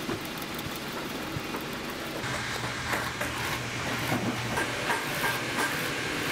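Industrial sewing machine stitching a leather boot upper: a low motor hum, then a rhythmic clacking of the needle strokes from about two seconds in, about three a second.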